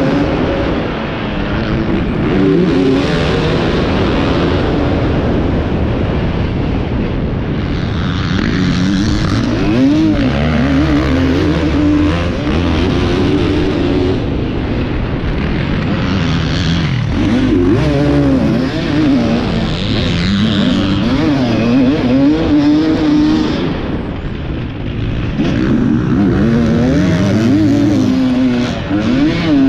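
A 450-class motocross bike's engine, recorded on board while racing. It revs up and falls back again and again as the rider accelerates, shifts and rolls off for jumps and turns.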